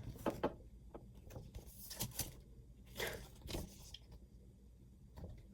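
Handling and tearing open small packaging: a scatter of short rustling, crinkling and tearing noises, loudest about two and three seconds in.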